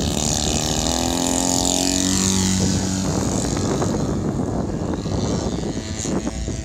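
Radio-controlled aerobatic plane taking off at full power, its propeller and motor note steady for a few seconds, then fading into a low rumble after about three seconds as the plane climbs away.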